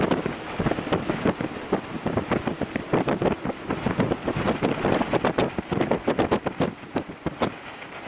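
Strong gusting wind buffeting the microphone: a constant rough rumble broken by rapid, irregular blasts.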